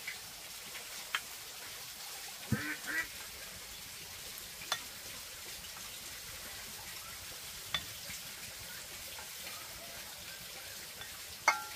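Rice paddle, pot and bowls clinking during a meal, a sharp click every few seconds with the loudest near the end, over a faint steady hiss. About two and a half seconds in come two short calls.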